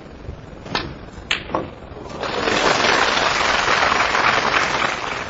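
Two sharp clicks of snooker balls about half a second apart, then audience applause for about three seconds.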